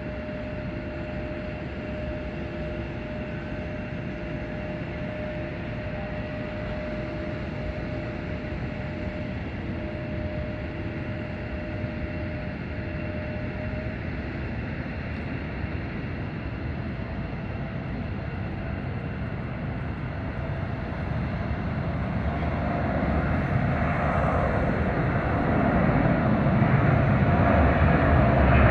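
Airbus A300F4-605R freighter's twin General Electric CF6-80C2 turbofans at takeoff power: a steady distant jet rumble through the takeoff roll that swells into a louder, deeper rumble over the last several seconds as the aircraft lifts off and climbs out.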